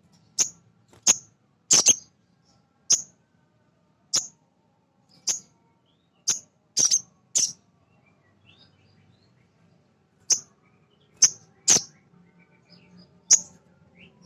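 Male little spiderhunter (sogon) calling: short, sharp, high-pitched notes, about fifteen at irregular spacing, some in quick pairs, with a pause of about three seconds midway.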